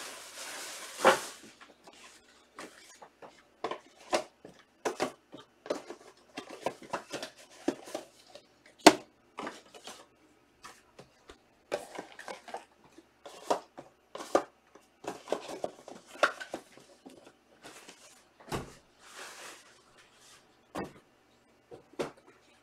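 Trading cards and their pack wrappers being handled on a table: a rustle of wrapper near the start, then many scattered light clicks and taps as cards are flipped, shuffled and set down.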